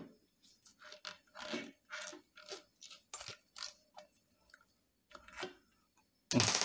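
Irregular short rubbing and crackling of a heat-softened rubber water hose being worked by hand over a metal tube to stretch its end wider. A louder burst of noise comes near the end.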